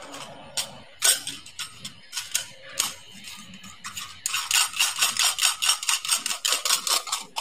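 Brass sev press being handled and fitted together: scattered metal clicks and knocks, one loud one about a second in, then a quick run of clicking about five a second from about four seconds in.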